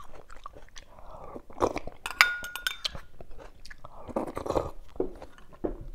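Close-up eating sounds: wet chewing of a mouthful of soft stuffed cucumber and pork soup, with small mouth clicks. A spoon clinks against the china bowl with a short ring a little after two seconds in.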